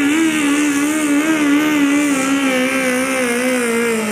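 Garden Modified pulling tractor's engine held at high revs as it drags the weight sled under load. Its pitch wavers rapidly and sags a little near the end.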